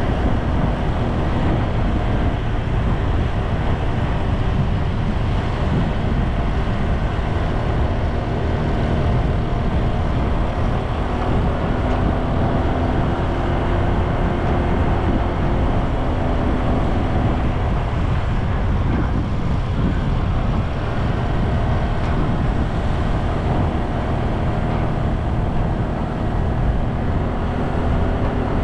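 Steady running noise of a vehicle travelling along a road: a low engine drone with road noise, holding even throughout.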